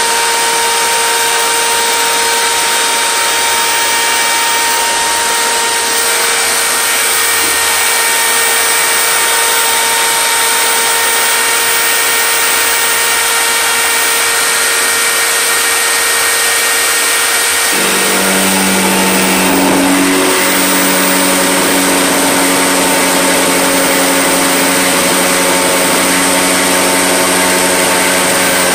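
Electric router in a homemade router table running steadily with a high whine while a pine board is fed across the cutter. About 18 seconds in, the tone changes and a lower hum joins in.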